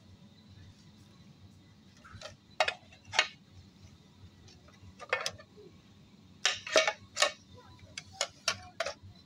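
Non-stick frying and grill pans knocking against each other and the metal wire display bin as they are handled: short sharp clacks in small clusters, about two seconds in, around five seconds, a quick run near seven seconds and a few more near the end.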